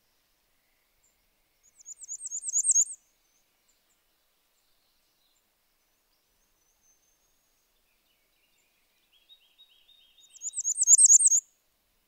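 Bay-breasted warbler singing: two short, very high, thin songs of rapidly repeated notes, each one growing louder, several seconds apart.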